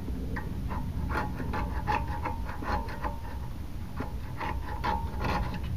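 Rust and grime being scraped off a corroded caliper slide with a small hand tool: a run of short, irregular scratching strokes.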